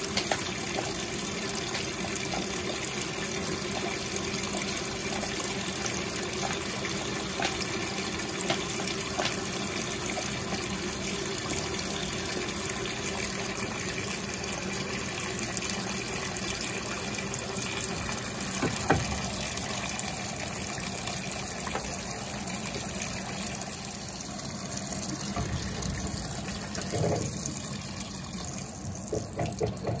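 A GE Imagination 10 kg top-load washing machine filling for the rinse: a steady stream of water pours into the tub, flushing in the fabric softener. Near the end the water sound eases off and a few clunks are heard.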